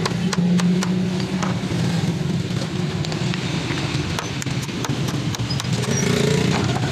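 Small hammer striking nails into a bamboo ladder's rail, irregular light knocks, with a heavy steel hammer head held underneath as a backing block. A steady low drone is the loudest sound throughout.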